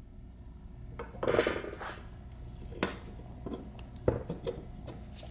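Metal parts being handled as a transmission front bearing retainer is slid over the input shaft and set against the gearbox case: a brief scrape about a second in, then a few light metallic clicks.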